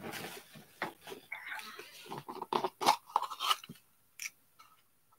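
Rummaging and handling small objects: a quick irregular run of clicks, taps and rustles that stops about four seconds in.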